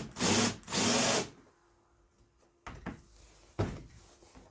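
Power drill with a countersink bit cutting a hole in two short bursts of about half a second each, then two light knocks.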